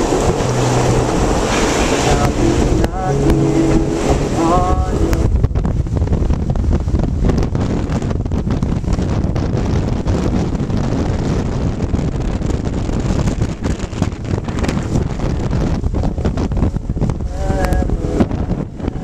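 Strong storm wind buffeting the microphone as a heavy, steady rumble.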